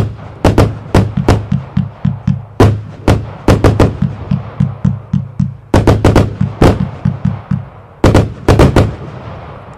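A 144-shot, 25 mm compound firework box firing in quick runs of sharp launch thumps and bursting bangs, several a second, with a brief lull just before a fresh run near the end. Music with a pulsing bass plays underneath.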